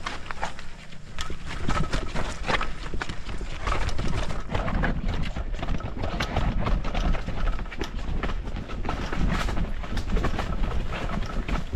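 A horse's hooves clip-clopping on hard ground: an irregular run of sharp knocks and clatter.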